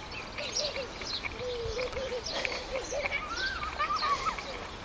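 Small birds chirping and calling, with many short high chirps scattered throughout. Faint voices are heard in the distance.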